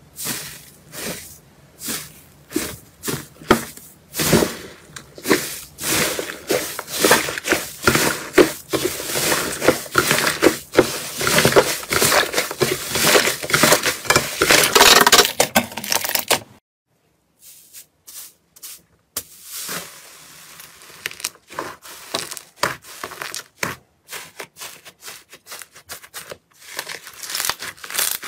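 Hands squeezing and kneading thick, crumbly slime, giving a dense crackling and squishing that grows busier and louder. It cuts off suddenly about sixteen seconds in, then quieter, sparser crackles follow as a softer blue slime is pressed in a bowl.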